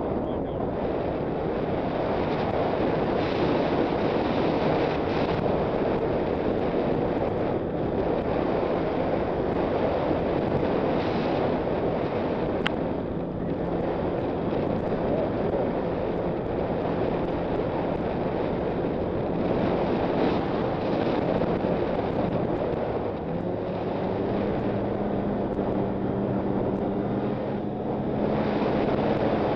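Snowmobile engine running under way, mostly buried under heavy wind rushing over the microphone. The engine note changes about three quarters of the way through.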